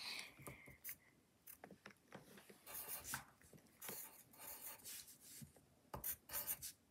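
Pencil scratching on paper in short, repeated strokes as lines are drawn, with a quicker, louder run of strokes near the end. Faint.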